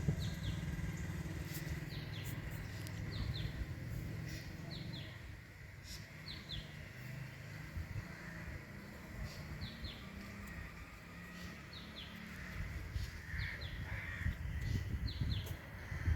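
A bird chirping, short high double notes repeated every second or two, over a low traffic rumble that fades after the first few seconds and rises again near the end.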